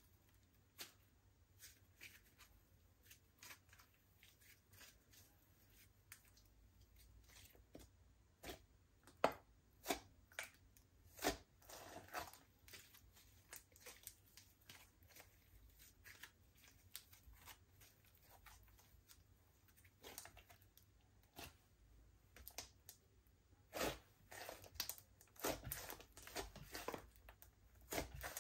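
Slime being mixed: scattered soft, sticky clicks and crackles, in busier runs about a third of the way in and again near the end.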